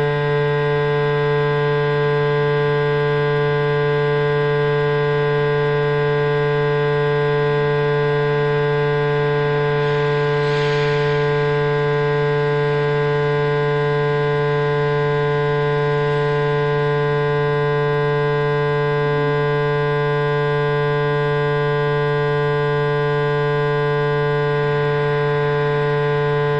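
Steady, loud drone of several held tones with many overtones, from a sound art installation; it does not change in pitch or level.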